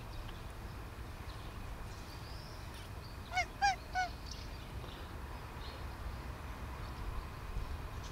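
Three short, quick pitched calls in a row about three and a half seconds in, each a brief rise and fall, from an animal.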